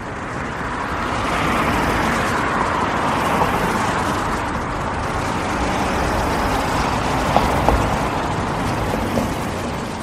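Steady rain falling through woodland, an even hiss that swells up over the first second or two and then holds.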